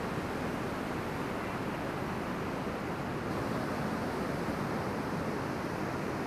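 Breaking ocean surf: a steady, even wash of waves with no single crash standing out.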